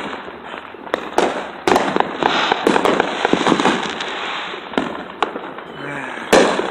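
Fireworks going off: a string of sharp bangs from about a second in, a stretch of dense crackling in the middle, and a few more bangs, the loudest near the end.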